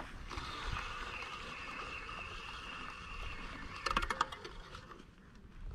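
A spinning reel's drag whining steadily as a hooked shark pulls line off. A few sharp clicks come about four seconds in.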